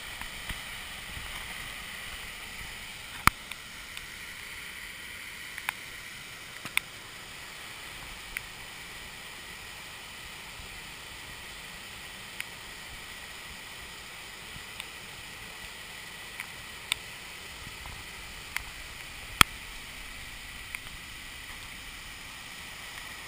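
Waterfall in flood, its water rushing in a steady hiss. A dozen or so sharp clicks stand out at random moments, the loudest about 19 seconds in.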